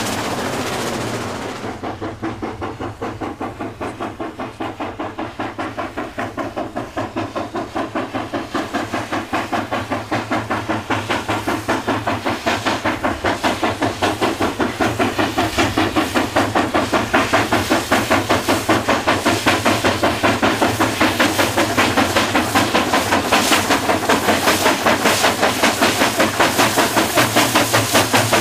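Steam locomotive hauling a long freight train, its exhaust beating in quick, even chuffs, about four a second, that grow louder as it draws near.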